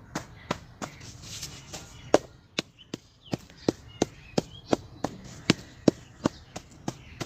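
Repeated sharp knocks of a tool striking a block of set, rock-hard cement, about three blows a second. The reused cement has set too hard to crumble, so it only knocks and chips.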